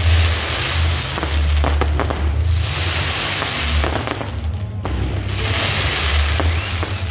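Fireworks going off in volleys: rockets hissing up and bursting with scattered pops and bangs over a dense, continuous crackling hiss. Music with a strong, steady low bass plays underneath.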